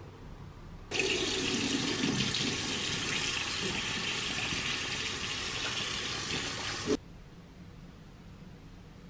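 Water running from a bathroom sink mixer tap into the basin while hands are washed under the stream: a steady rushing splash that starts suddenly about a second in and stops suddenly about two seconds before the end.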